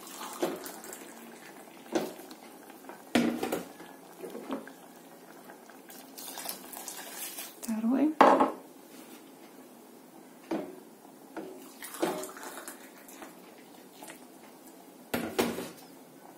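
Sharp clinks and knocks of a cup and a metal spoon against a stainless steel saucepan, spread out over several seconds with the loudest about halfway through, as boiled water is poured in over toasted buckwheat.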